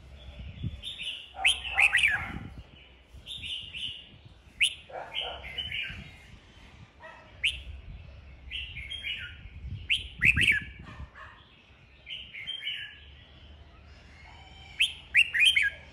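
Red-whiskered bulbul singing its competitive fighting song: short, rapid phrases of sharp whistled notes that repeat every second or two, with loud bursts about two seconds, ten seconds and fifteen seconds in.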